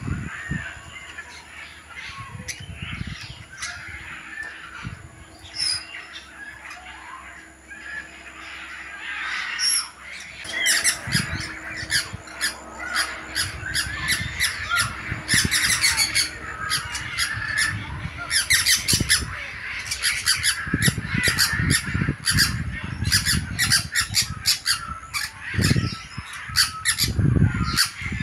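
Caged parrots and other aviary birds squawking and chattering. The calls are sparse at first, then become a dense run of sharp, rapid squawks from about ten seconds in.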